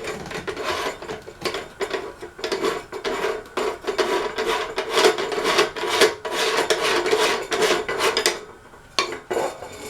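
Quick, repeated scraping and rubbing as the light kit is worked loose and taken off a Hunter Westover ceiling fan, followed by a couple of short knocks near the end.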